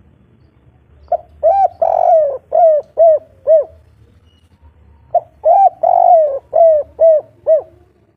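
Spotted dove cooing: two song phrases about four seconds apart, each a short coo leading into a long coo and ending in three short, evenly spaced coos, the 'kuk 3' song type.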